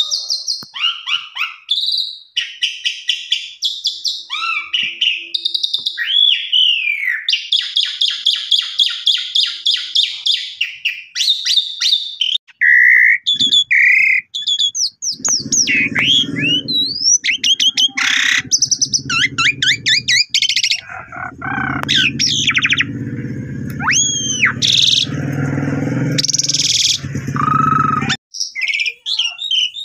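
Asian pied starling (jalak suren) singing: fast runs of rapidly repeated high notes, mixed with gliding whistles that rise and fall. About halfway through, a low background noise starts underneath and stops shortly before the end.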